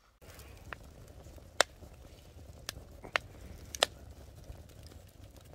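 Wood fire crackling: a low steady rumble with about five sharp, irregular pops, the loudest near the middle.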